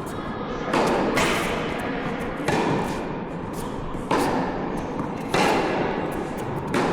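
A tennis rally: a racket strikes the ball about every one and a half seconds, each hit followed by a short ring. Fainter taps of ball bounces and footsteps come between the hits.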